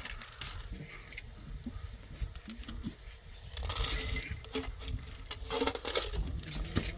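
Irregular clinks and scrapes, like small hard objects knocking together, with louder clatters about four seconds and six seconds in.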